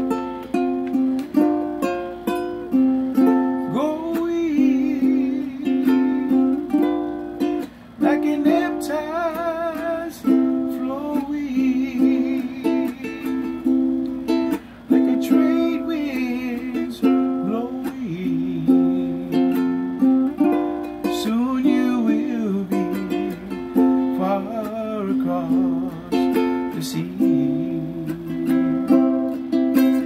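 Ukulele strummed steadily, with a man singing a wavering melody over it.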